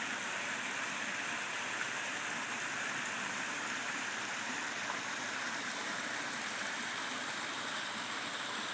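Pool waterfall of stacked mountain stone pouring steadily into the pool, an even splashing rush of about 40 gallons a minute.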